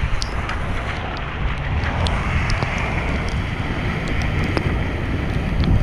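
Wind rushing over a helmet-mounted camera's microphone while cycling, with the steady rumble and hiss of bicycle tyres on wet pavement. Scattered light ticks run through it.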